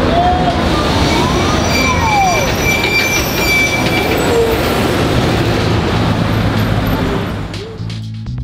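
Busy street traffic: city buses and cars passing with a steady rumble of engines and tyres, and a high steady squeal for a second or two partway through. Near the end the traffic fades and music with a beat comes in.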